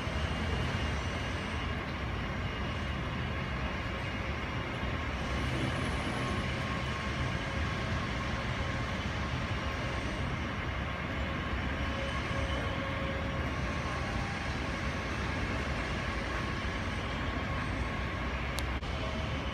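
Airbus A320 jet engines at taxi idle: a steady rumble with faint whining tones as the airliner rolls slowly toward the gate.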